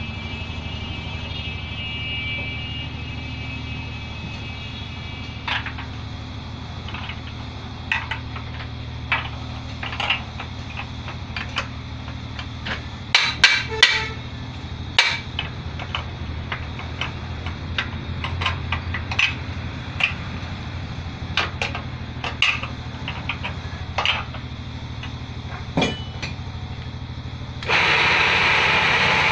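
Wood-turning lathe running steadily with a motor hum and a high whine, with irregular sharp clicks and knocks as it works the wood. Near the end a much louder, even rushing noise sets in abruptly.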